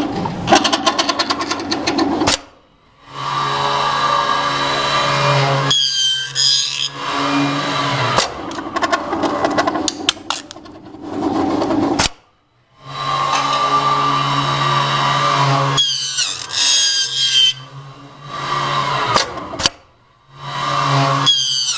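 Automatic aluminum channel letter bending machine working in cycles, its motors humming as it feeds and bends the aluminum strip. There is a fast run of clicks in the first two seconds and short high squeals now and then, and it stops briefly three times.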